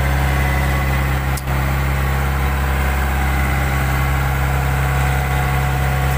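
Fishing boat's engine running steadily at a constant speed, with a brief dip about a second and a half in.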